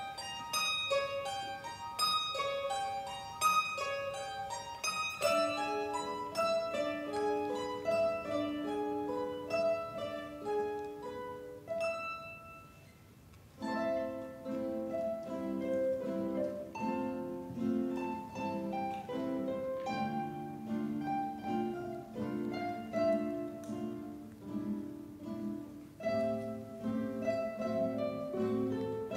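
Mandolin orchestra of mandolins, guitars and double basses playing: a line of picked notes that grows quieter and thins to near stillness about halfway through, then comes back fuller, with lower notes joining in.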